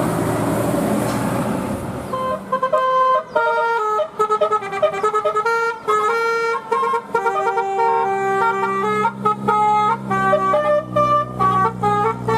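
Bus 'telolet Basuri' musical air horn playing a fast tune of stepped notes, starting about two seconds in after traffic noise. A low steady drone joins near the end.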